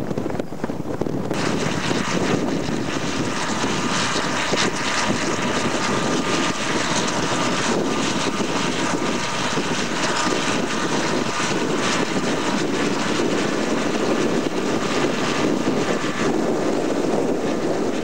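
Tractor diesel engine running steadily under load while pulling front and rear ploughs through the soil; the drone grows brighter and louder about a second in.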